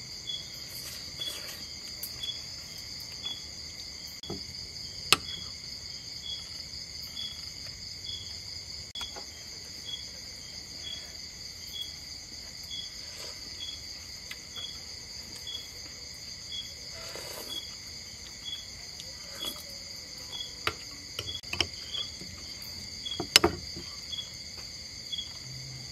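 Insects chirping and trilling steadily, one high chirp repeating about twice a second, with a few sharp clinks of a metal spoon against a ceramic bowl, the loudest about five seconds in and near the end.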